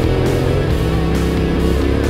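Rock music with electric guitar, with a dirt bike's engine running underneath.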